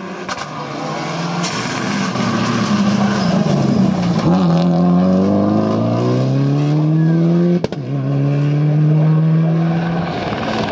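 Rally car engines at full throttle, the revs climbing and dropping through gear changes as the cars pass close, with one sharp crack about three-quarters of the way through.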